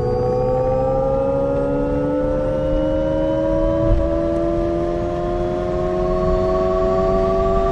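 Alpine A290 electric car's synthesised 'Alpine Sound' drive tone: a chord of electronic tones climbing slowly and smoothly in pitch as the car accelerates, over a low road rumble.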